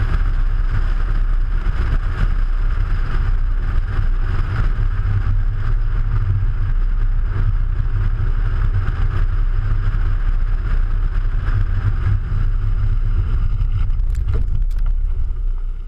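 Audi A3 driving along, heard from a camera mounted low on the car's side by the front wheel: steady, heavy rumbling road and wind noise. A couple of sharp clicks come about fourteen seconds in, and the sound drops off near the end.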